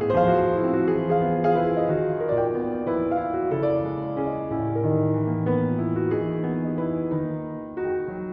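Background music: a gentle piano piece playing soft, sustained notes.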